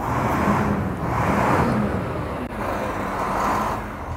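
Kamaz Arctica 6x6 truck's diesel engine running with a steady low hum, and a rushing hiss over it that swells and fades three times.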